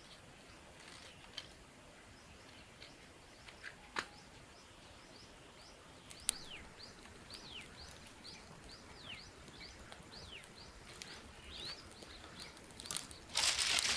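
A bird calling over and over, a run of short downward-sliding whistles about two a second, against faint outdoor background noise, with a few sharp clicks. Near the end a loud crunching starts.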